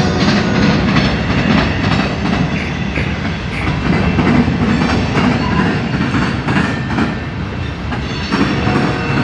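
Freight train cars rolling slowly past, their wheels clacking unevenly over the rail joints over a steady rumble, with a faint wheel squeal now and then. The train is slowed for a curve just ahead.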